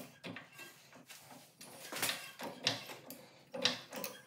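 A few irregular clanks and knocks with some scraping, from hands-on work under a car. The loudest knocks come about halfway and three-quarters of the way through.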